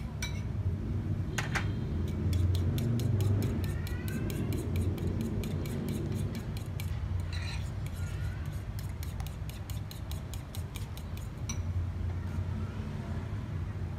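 Metal spoon clicking quickly and regularly against a small bowl while egg and flour are stirred into batter, with a steady low hum underneath.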